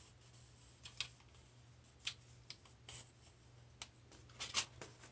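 Scattered light clicks and taps from a hair flat iron being handled on the hair and set down, a cluster of them near the end.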